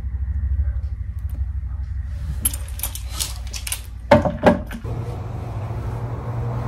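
Glass perfume bottles clinking and tapping as one is set back on a shelf among others, with two sharper knocks about four seconds in, over a low steady hum.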